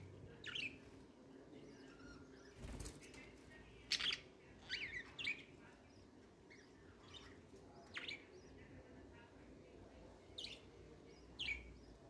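Budgerigars chirping: short, sharp chirps scattered through, with a quick cluster about four to five seconds in. A brief rustle comes near three seconds in.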